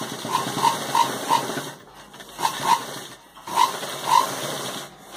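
Domestic sewing machine stitching in three short runs, with a few sharp, high clicks or squeaks in each run.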